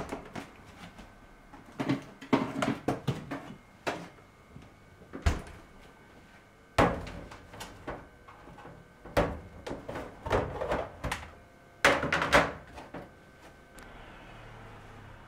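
A lidded plastic food container being handled: its lid is pressed on and the container is knocked down onto stainless steel, in a series of sharp knocks and clatters. The last knocks come about twelve seconds in. A faint steady hum follows.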